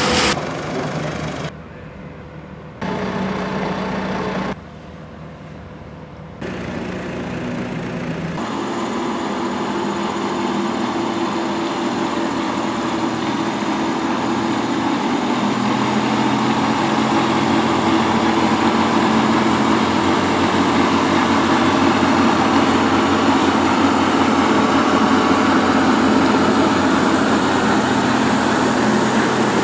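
Workshop noise in several short cuts over the first few seconds, then a heavy timber truck's diesel engine running steadily as it slowly pulls a long log trailer past, growing gradually louder.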